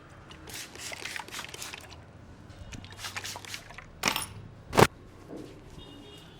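Hands working the hair and scalp in an Indian head massage: two runs of quick crackling snaps from the hair being tugged, then two sharp cracks less than a second apart, the second the loudest.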